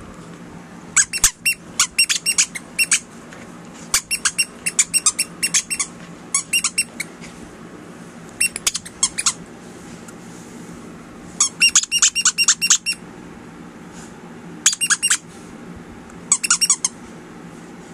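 Squeaker in a plush dog toy squeezed in quick bursts of high squeaks, with pauses of a second or two between bursts.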